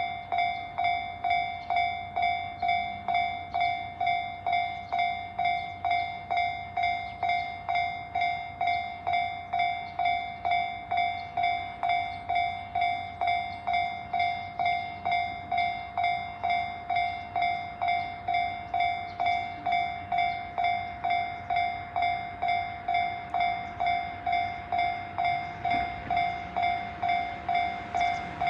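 Japanese level-crossing warning bell ringing in an even rhythm, about two strokes a second, each stroke a clear ringing tone that fades quickly. This is the signal that a train is approaching the crossing. A rushing noise builds underneath near the end.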